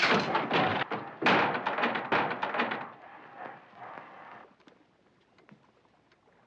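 A floor trapdoor dropping open: a sudden loud thunk and clatter, a second heavy knock about a second later, then rattling that dies away over the next few seconds.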